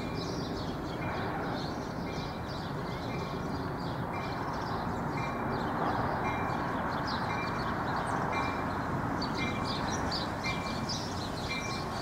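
NJ Transit push-pull commuter train approaching with its cab car leading, a steady rumble that grows slightly louder about halfway through. Over it, a short high ding repeats about every three quarters of a second, and birds chirp.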